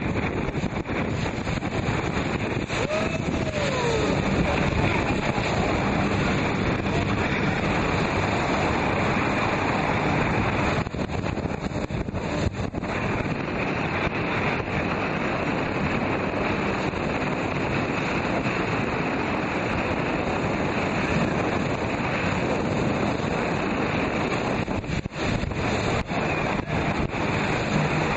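Speedboat running through river rapids in flood: a steady rush of churning water with heavy wind buffeting the microphone.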